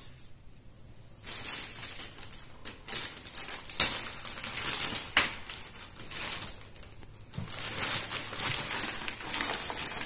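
Clear plastic packaging bag crinkling and rustling as it is pulled off a canister vacuum cleaner, with a few sharper crackles. It starts about a second in, eases off briefly past the middle, then picks up again.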